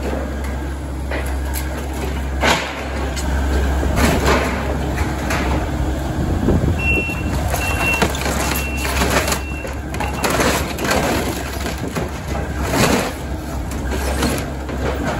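Takeuchi TB290 excavator's diesel engine running as its bucket tears into a wooden garage roof, with wood shattering and metal roofing ripping in repeated cracks and crashes. Midway, a backup alarm beeps a few times.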